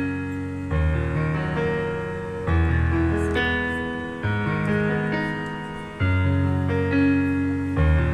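Background piano music: slow chords over deep bass notes, a new chord struck about every second and three quarters.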